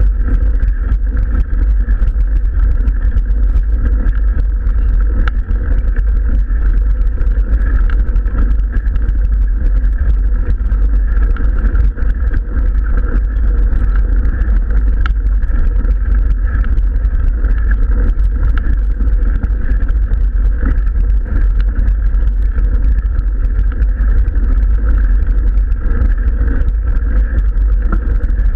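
Steady rumble of wind and vibration on a bike-mounted action camera as a mountain bike rolls up a gravel road.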